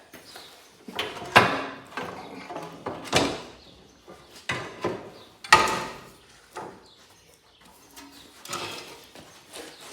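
Metal clunks and scraping as the engine is worked loose and lifted out of a Cub Cadet 782 garden tractor's frame, with several sharp knocks, the loudest about a second and a half in and again past the middle.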